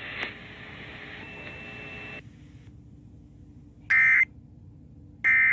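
Radio static hiss that cuts off about two seconds in, then two short, loud bursts of EAS end-of-message (EOM) data tones, buzzy digital chirps a little over a second apart. They signal the end of the emergency alert broadcast.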